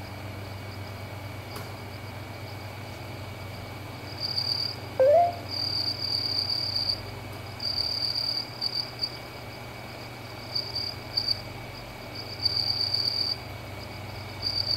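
A cricket chirping in irregular high-pitched trilled bursts over a steady low hum, with a short rising squeak about five seconds in.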